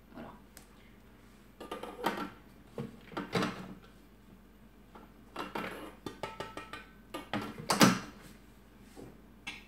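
Stainless steel Thermomix mixing bowl clunking and knocking as it is handled and seated back in the machine's base: several separate knocks, the loudest near the end, some with a short metallic ring.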